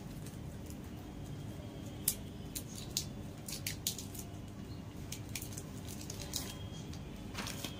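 Wrapper of a Cadbury Dairy Milk chocolate bar crinkling as it is peeled open, with irregular sharp crackles over a low steady hum.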